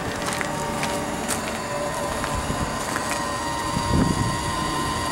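Steady outdoor rumble with wind buffeting the microphone and a faint steady whine. A few light clicks, and a soft thump about four seconds in.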